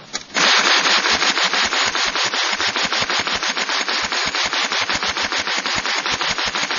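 Replica 1885 ten-barrel hand-crank Gatling gun firing .22 LR in a long, rapid, even stream of shots, several a second, as the crank is turned. The burst starts about a third of a second in and stops near the end.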